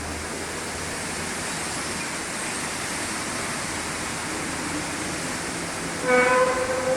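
Unexplained 'sky trumpet' sound: a steady rushing noise, then about six seconds in a louder horn-like blare with a clear pitch and several overtones.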